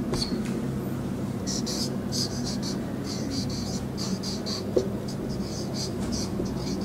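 Marker pen writing on a whiteboard: a run of short, high scratchy strokes, one after another, over a steady low hum.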